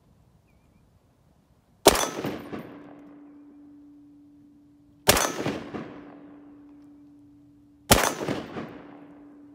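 Three rifle shots from a .308 AR-10, fired prone about three seconds apart. Each crack is followed by a long echo fading off the quarry walls.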